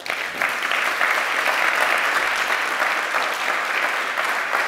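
Audience applauding, a dense steady clapping that starts suddenly at the end of a talk.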